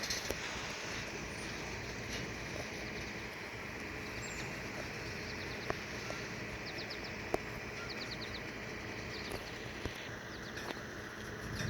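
Steady outdoor background noise with a bird singing short trills of quick repeated high notes several times, and a few faint clicks.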